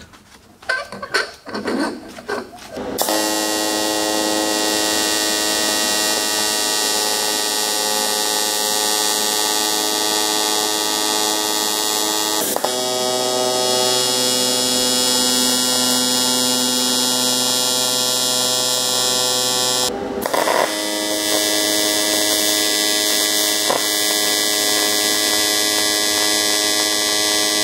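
AC TIG welding arc on aluminum, a steady electric buzz, starting about three seconds in after a few light knocks and clinks of handling. The buzz breaks off and restarts twice as the arc is stopped and struck again, about halfway through and again about two-thirds through.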